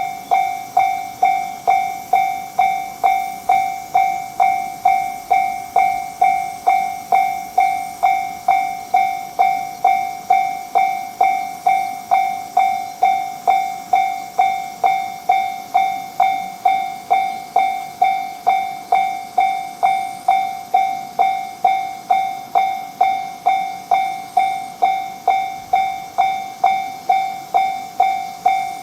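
Japanese railroad crossing warning bell ringing its steady "kan-kan" at about two strikes a second, each strike sharp and quickly dying away, signalling that a train is approaching and the barriers are down.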